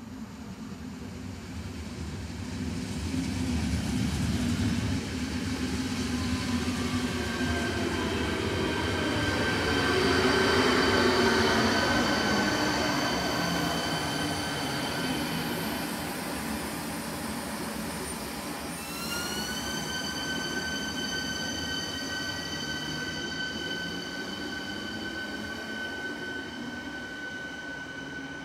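Double-deck electric multiple unit (ČD class 471 CityElefant) running past on the track, with wheels and body noise that swell to a peak about ten seconds in and then fade as it goes away. A steady high electric whine in several tones runs through it and steps up in pitch about two-thirds of the way through.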